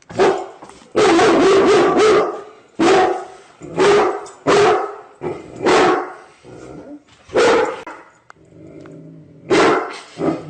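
A dog barking repeatedly, in loud separate barks about one a second, with a rapid run of barks a second in. There is a quieter drawn-out sound between barks near the end.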